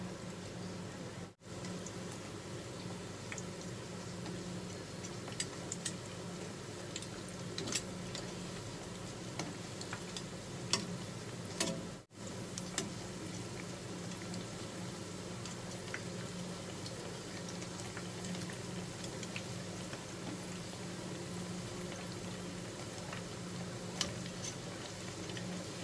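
Battered chikuwa deep-frying in a pan of oil: a steady sizzle, with occasional sharp clicks of metal tongs against the pan as the pieces are turned.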